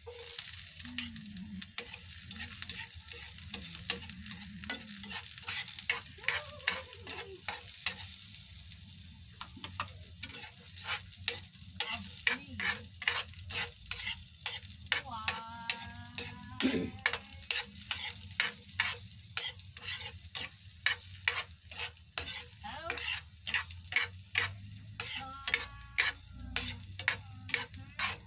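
Garlic sizzling in a little oil in a frying pan while a metal spatula stirs and scrapes it, clicking against the pan about twice a second. The sizzle is loudest in the first third.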